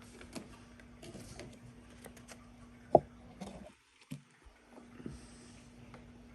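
Small plastic toy pieces being handled, with scattered light clicks and taps and one sharp click about three seconds in, over a faint steady hum.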